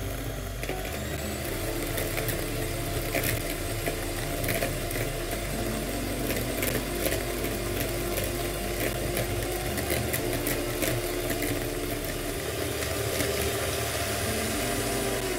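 Electric hand mixer running steadily, its beaters whisking a runny egg-and-sugar batter in a plastic bowl, with scattered clicks. Near the end the motor's pitch drops as it slows down.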